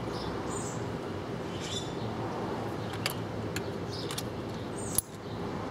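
A few separate sharp clicks from a socket ratchet wrench as new spark plugs are snugged down a half turn past hand-tight, over a steady background hiss.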